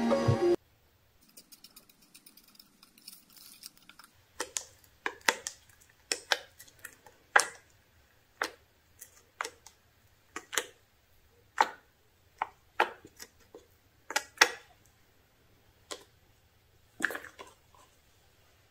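Thick green slime being poked and pressed with fingers in a plastic tub, giving short, sharp wet clicks and pops about once a second.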